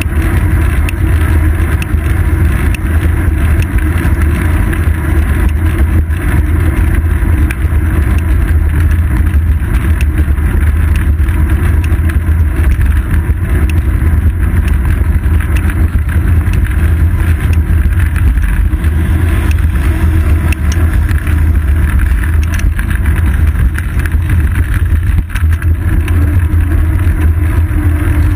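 Loud, steady rumble of road vibration and wind picked up by a seat-post-mounted GoPro Hero 2 on a moving bicycle, with street traffic mixed in.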